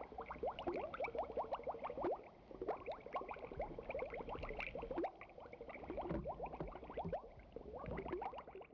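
Underwater bubbling sound effect: a stream of small bubbles, each a quick upward blip, stopping near the end.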